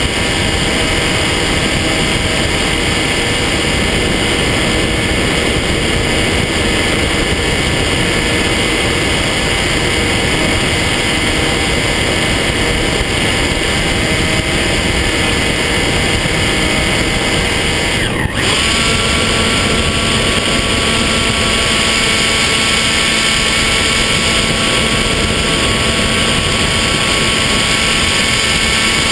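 Electric motor and propeller of a foam FPV radio-controlled plane whining steadily, with wind rushing over the onboard camera. About two-thirds of the way through the sound dips briefly and the motor's pitch changes.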